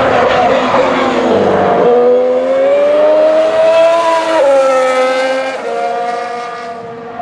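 Ferrari Formula 1 car's turbocharged 1.6-litre V6 hybrid engine running at speed. Its note climbs steadily for a couple of seconds, then drops in two steps as gears change, and it fades a little near the end.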